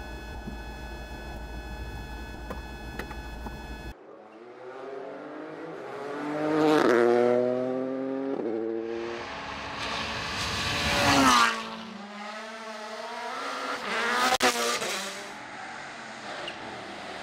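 Rally car engines at full race pace, revving hard, with pitch sweeping down through downshifts as the cars brake and pass close by. The loudest pass is about eleven seconds in and cuts off sharply. A steady hum comes before them for the first four seconds.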